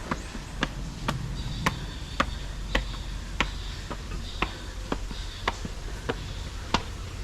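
Footsteps walking at an even pace, a sharp click about twice a second.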